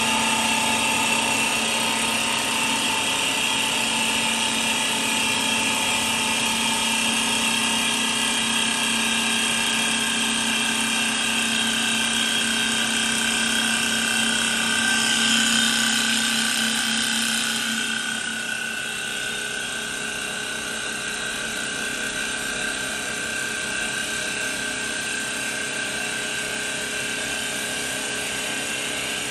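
CNC wood turning lathe running, its spindle whining steadily while the cutter shaves the spinning wooden blank into a table leg. About eighteen seconds in the sound drops a little and its pitch pattern shifts.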